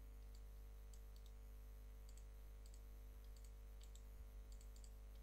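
Near silence with faint, scattered computer-mouse clicks, several in quick pairs, over a steady low hum.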